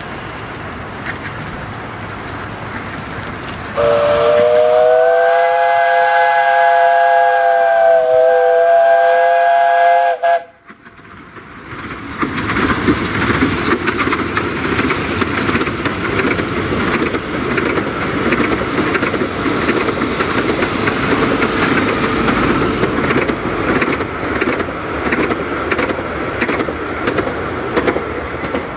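Narrow-gauge steam locomotive sounding a long whistle of several notes at once, held for about six seconds and cut off sharply. Then the engine is heard working under steam, its exhaust beats and the running of the coaches growing loud as the train passes close by.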